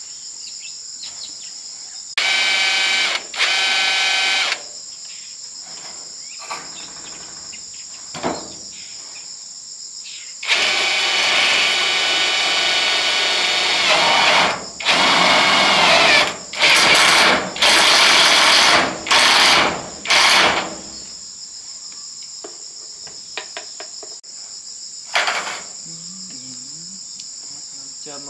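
Power drill running in bursts: two short runs, then one long run of about four seconds followed by five shorter runs, one of them dropping in pitch as it stops. A steady high drone of crickets or cicadas runs underneath.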